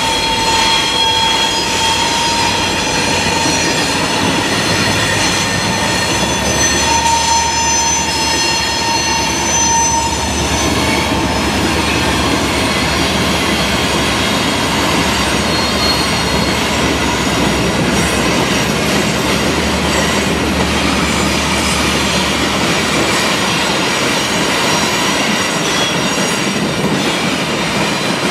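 Loaded ore train of EMD diesel road-switcher locomotives (GP40-2, GP40 and GP39) hauling heavy gondolas across a wooden trestle: steady noise of the engines and rolling wheels. Thin high ringing tones sound through roughly the first ten seconds, and a low engine rumble comes in a few seconds in and fades in the last few seconds.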